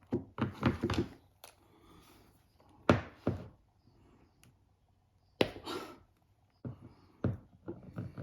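Small knocks, taps and clicks of hand tools and parts being handled while a smartphone is opened for repair, in several short clusters.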